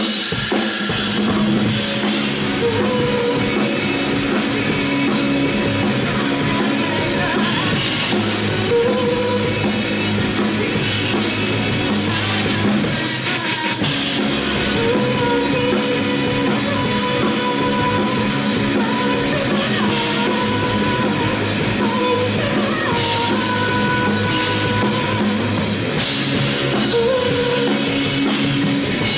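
A rock band playing live: a drum kit drives a steady beat under guitars, with a voice singing over it.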